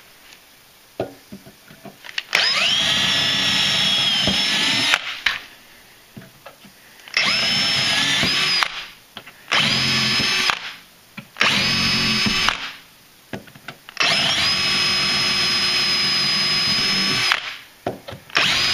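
Handheld power drill running at high speed with a larger bit, boring the traction-stud holes through the aluminum tubes of a snowmobile running board frame. It runs in about six bursts of one to three seconds, each spinning up with a short rising whine, with brief pauses and small clicks between holes.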